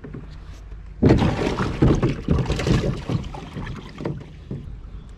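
Water splashing and sloshing in a boat's live well for about two and a half seconds, starting about a second in, as a bass is grabbed by hand out of the water.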